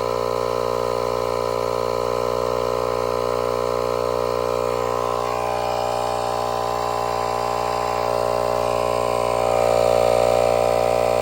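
Portable 12-volt tire inflator compressor running steadily, pumping air into a punctured tire that will not hold it because the air escapes through a large hole. Its pitch shifts slightly about halfway through, and it gets a little louder near the end.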